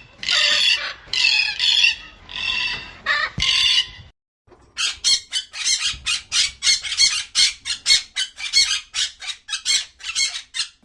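Chickens calling in short, harsh squawks. About four seconds in, after a sudden break, a fast run of short calls follows at roughly three a second.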